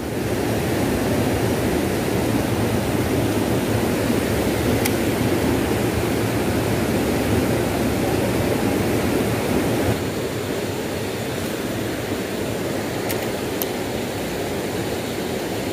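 Steady rush of a shallow river running over rocks and boulders, a little softer from about ten seconds in.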